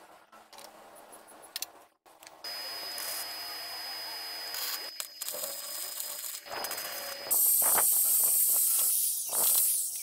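Arc welding on a steel box-section frame: a steady crackling hiss from about two and a half seconds in, much louder and hissier from about seven seconds in until near the end, after a couple of seconds of faint taps.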